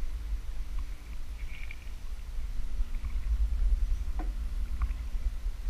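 A low steady rumble with a few faint squeaks and clicks scattered through it.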